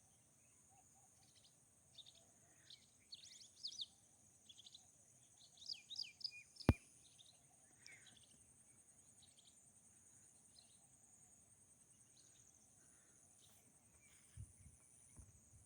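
Wild birds chirping in short, scattered calls over a steady high-pitched insect drone. A single sharp click comes a little before the middle, and soft low thumps come near the end.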